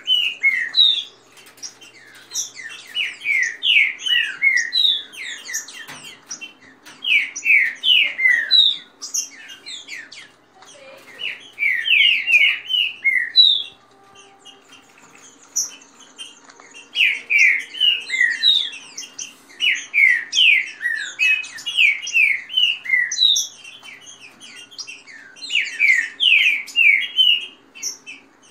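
Caged green-winged saltators (trinca-ferro) counter-singing in a territorial contest: bursts of fast, clear whistled phrases every few seconds, over a faint steady low hum.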